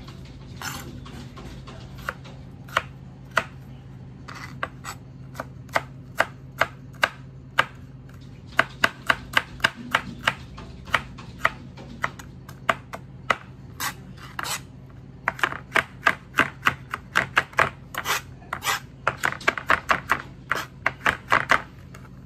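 Kitchen knife chopping and mincing garlic on a plastic cutting board. Single sharp knocks at first, coming faster from about a third of the way in, then quick runs of several chops a second near the end.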